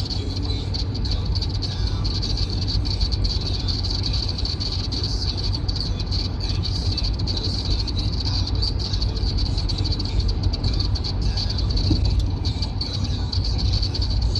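Steady road and engine rumble heard from inside a vehicle's cabin while cruising at motorway speed, with a constant high hiss on top.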